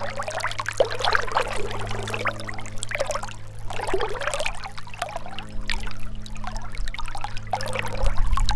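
Gentle river running and trickling, its burbling swelling and easing in uneven surges, with a steady low hum underneath.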